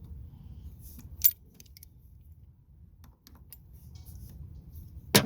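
Sharp metallic clinks of hand tools on a battery terminal clamp. There is one loud clink about a second in and a few light ticks after it, then a louder clatter near the end, all over a low steady rumble.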